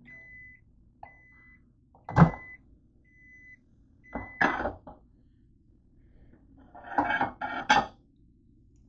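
700-watt microwave oven stopping at the end of its cooking cycle: its hum cuts out and it beeps five times, about once a second, one steady tone. About two seconds in the door pops open with a loud clunk, and then a plate clatters and scrapes against the glass turntable as it is pulled out.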